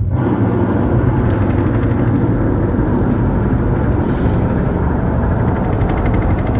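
Loud, steady rumbling sound effect from a theater film soundtrack played through speakers. It sets in suddenly at the start, with a deep rumble under a hissing rush.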